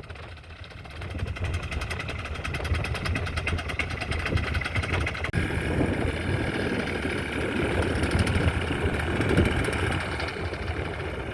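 Kitfox light aircraft's piston engine running steadily with a fast even beat. About five seconds in the sound changes abruptly, and wind noise on the microphone mixes in from then on.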